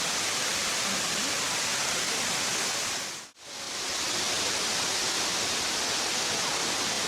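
Waterfall cascading: a steady, dense rush of falling water. About halfway through it fades out to near silence for a moment and swells straight back in.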